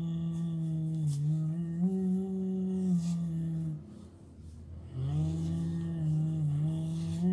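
A person humming a slow tune in a low voice, in long held notes that step up and down in pitch, in two phrases with a short break in the middle.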